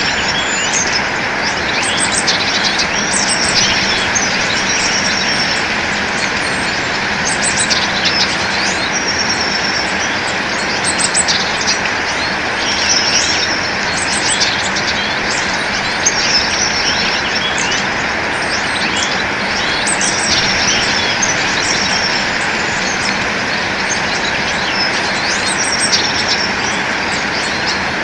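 Songbirds chirping and twittering in short high phrases that repeat every second or two, over a steady rushing background noise.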